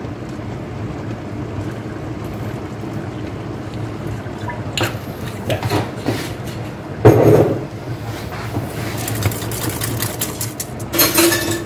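Liquid sounds from a saucepan of simmering brown sauce: red wine poured in, then the sauce cooking and worked with a wire whisk. Over a steady background hiss come a few short knocks, the loudest about seven seconds in.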